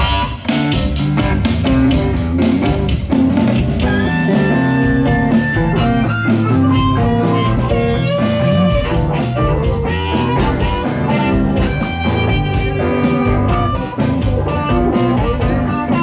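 Live amplified blues band playing: electric guitar and drums keeping a steady beat, with long held lead notes over the top.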